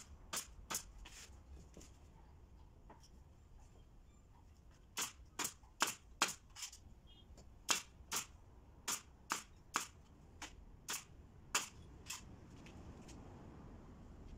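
Pneumatic nail gun firing nails into wooden frame strips: sharp single shots, two near the start, then after a pause of about four seconds a quick irregular run of about sixteen more.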